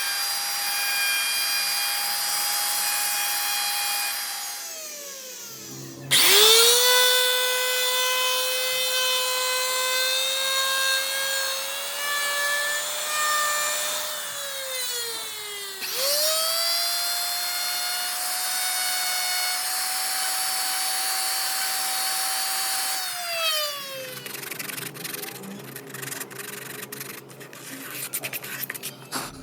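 Electric wood router cutting wood with a high motor whine. The whine winds down about five seconds in, starts again a second later with a rising pitch, winds down and spins up again around the middle, and winds down a final time about two-thirds of the way through. After that come irregular clicks over a low hum.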